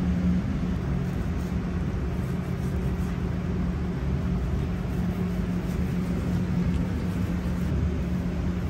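Steady low rumble and hum of kitchen background noise, unchanging throughout, with no distinct knocks or clatter.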